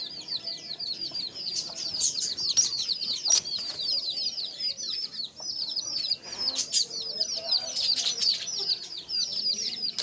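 Dense, unbroken high-pitched chirping of many small birds, the short calls overlapping several to the second, with a few sharp taps mixed in.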